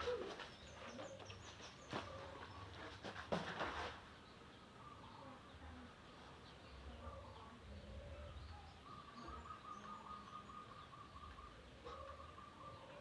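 Faint animal chirps and a short repeated trill, with a few light clicks and knocks in the first few seconds.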